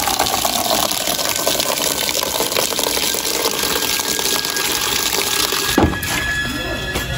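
Water running from an outdoor tap into a plastic bucket, a steady splashing stream. A little before the end the sound changes, with a brief knock.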